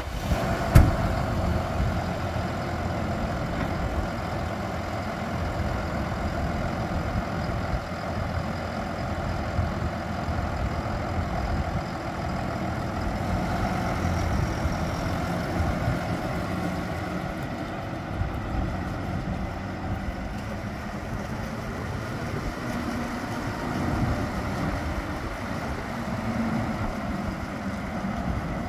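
Deutz-Fahr 6215 tractor's six-cylinder diesel engine running steadily at idle just after starting, with a single sharp knock about a second in.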